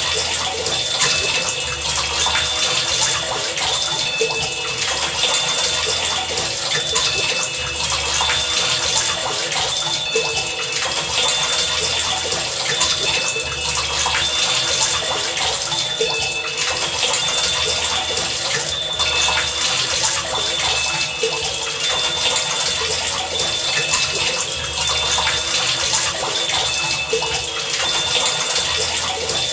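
Heavy rain falling steadily, with a low pulse repeating every second or two and short high tones recurring over it.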